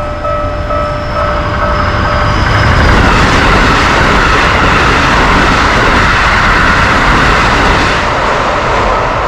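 Japanese level-crossing bell ringing in quick pulses, drowned out about two seconds in by a Keikyu train passing at high speed: a loud, steady rush of wheel and rail noise that builds, then eases off near the end.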